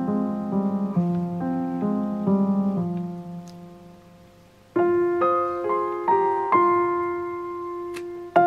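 Background piano music: a soft, gentle phrase fades away, and a new, louder phrase begins about five seconds in.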